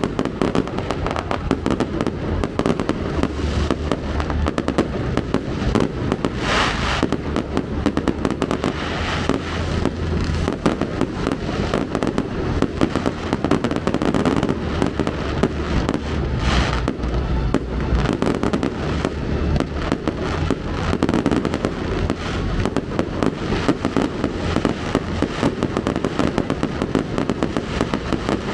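Fireworks display: a dense, unbroken run of shell bursts and crackling, with two louder spells about 7 and 17 seconds in.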